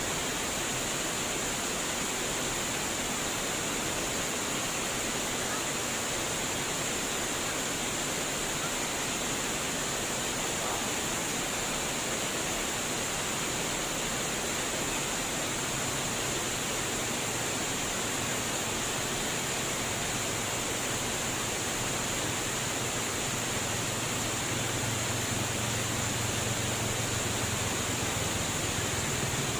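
Steady, even rush of flowing water, like a waterfall or fast stream. About halfway through, a low hum creeps in underneath and grows louder toward the end.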